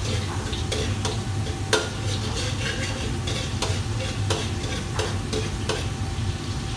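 Metal ladle stirring in a steel wok, scraping and knocking against the pan about once a second, over a steady frying sizzle and a low steady hum.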